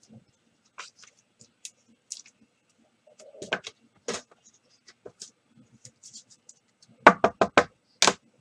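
Sports cards and their plastic holders being handled: scattered light clicks and rustles, then four sharp taps in quick succession near the end and one more just after.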